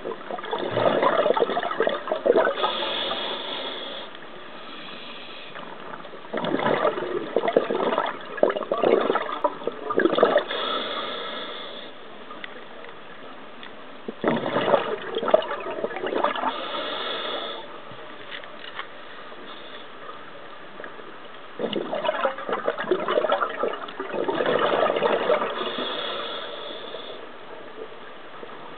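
Scuba diver breathing through a regulator underwater: four loud bursts of exhaled bubbles gurgling out, about one every seven seconds, with quieter stretches between.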